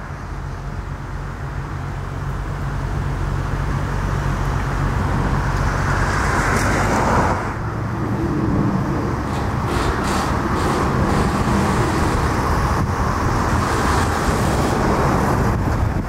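Motor vehicle noise: a low engine hum running steadily, with a rush of sound that builds to about seven seconds in and drops off suddenly, like a vehicle passing, then further swells of traffic-like noise.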